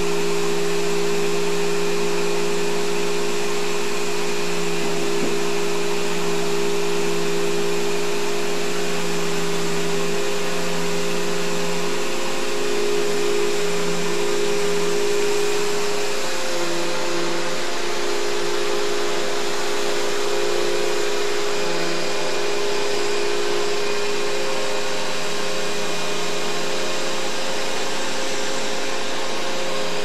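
Upright vacuum cleaner running on carpet: a steady motor hum over a constant rushing hiss, the hum wavering slightly in pitch for a while in the middle.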